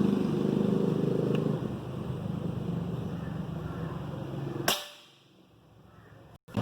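A single shot from a Precihole PX100 PCP air rifle: one sharp crack about two-thirds of the way in, over a steady low engine hum.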